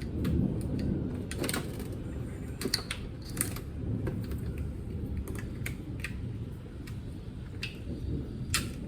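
Irregular light clicks and taps of hard parts being handled during hands-on work in a car's engine bay, over a low steady rumble.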